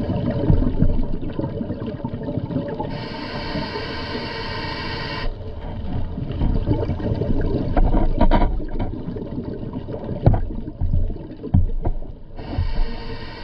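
Underwater sound picked up on a reef: a low rumbling water noise with scattered clicks and crackles. From about three seconds in, a buzzing hiss lasts about two seconds, and it comes back near the end.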